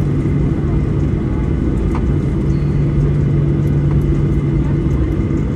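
Steady cabin drone of a Boeing 737-900ER taxiing, its CFM56-7B turbofan engines at low taxi power, heard inside the cabin over the wing: a low hum with two steady tones and a few faint clicks of cabin rattle.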